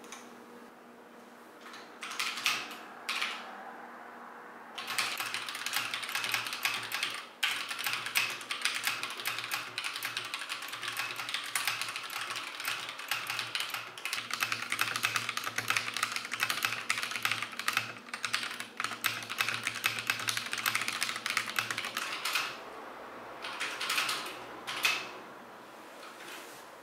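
Typing on a mechanical keyboard: a few short runs of key clicks, then a long stretch of fast, continuous keystrokes that stops a few seconds before the end, followed by a couple of brief bursts.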